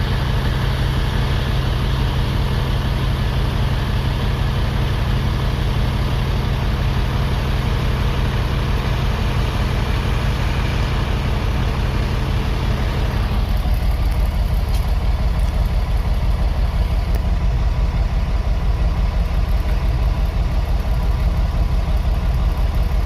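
Case IH 1680 combine running steadily while harvesting wheat, its engine a constant low drone with machinery noise over it. About 13 seconds in the pitch of the drone shifts and the higher hum falls away.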